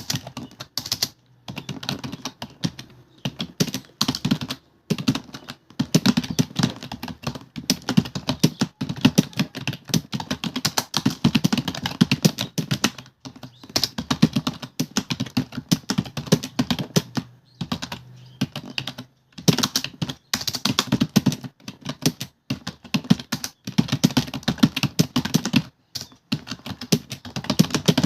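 Fast touch-typing on a computer keyboard: rapid key clicks in runs of words, with brief pauses between bursts.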